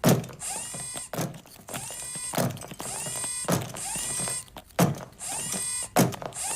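Legged walking robot TARRY II, built to mimic a stick insect, walking: its leg motors whir with a rising whine, and a knock comes about every 1.2 seconds as the legs step.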